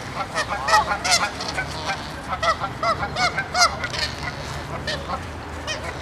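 Canada geese honking: a rapid run of short, overlapping calls that thins out after about four seconds, with a few more near the end.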